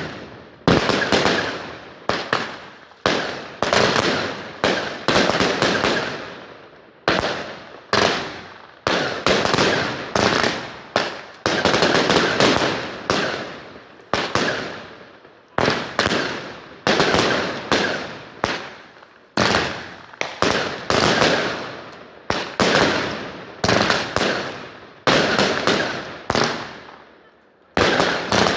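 Fireworks going off: a long, rapid series of sharp bangs, one every second or so, each dying away over about half a second before the next.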